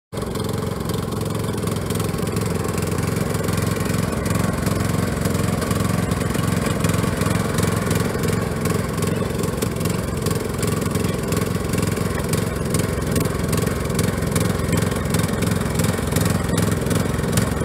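Troy-Bilt riding lawn mower's engine running at a steady speed while the mower is driven slowly across pavement.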